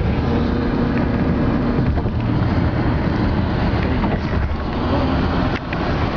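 Road and wind noise of a car moving at highway speed, heard from inside the cabin: a steady low rumble with a hiss over it.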